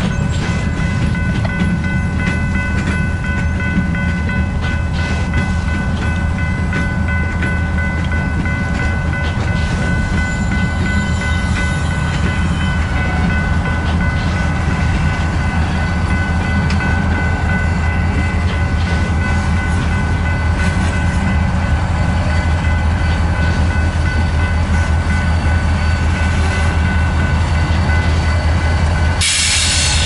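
Freight train of covered hopper cars rolling slowly past, shoved by a Canadian Pacific Geep and GE diesel locomotives: a steady low diesel rumble with a few thin steady high-pitched tones over it. A sudden loud hiss comes in about a second before the end, as the locomotives reach the camera.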